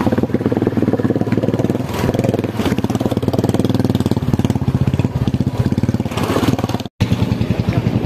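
Motorcycle engine running at low speed, a steady fast-pulsing exhaust note. It breaks off for an instant just before the end, then carries on.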